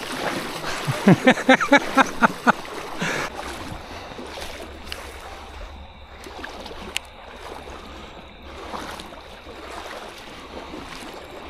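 Legs wading and splashing through a shallow river. The first three seconds hold a quick run of short, falling, voice-like sounds, and there is one sharp click about seven seconds in.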